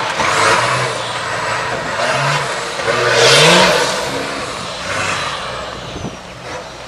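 A 4x4 off-road truck's engine revved hard in repeated bursts as it climbs over rough obstacles, the loudest rev rising in pitch about three seconds in and then easing off.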